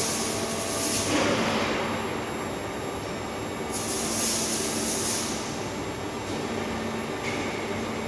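Steady factory-floor machinery noise with a constant low hum, broken by two bursts of loud hissing: one at the start and one about four seconds in.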